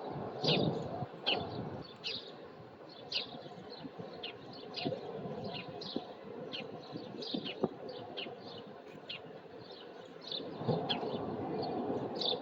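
Small birds outside chirping busily: many short, high, falling chirps, two or three a second. A low rumble swells near the start and again near the end.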